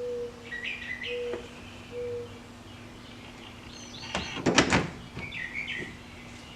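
Birds chirping in short high phrases, with a brief clatter of sharp clicks about four seconds in, over a steady low hum.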